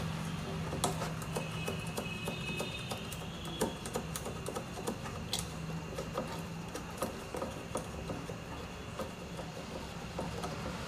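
Irregular small clicks and rattles of wires and connectors being handled inside an amplifier chassis, over a steady low hum.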